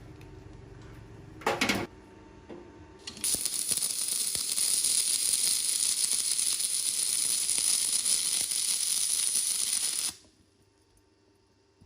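Electric arc welding: a short arc strike about one and a half seconds in, then the arc crackling and hissing steadily for about seven seconds before cutting off suddenly.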